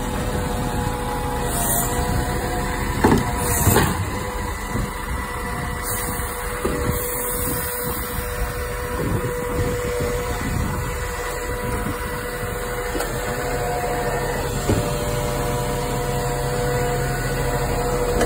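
Iveco Stralis side-loader garbage truck running at the kerb, its engine and lift machinery going with a steady whine while the arm tips a wheelie bin into the hopper. Two sharp knocks come about three and four seconds in.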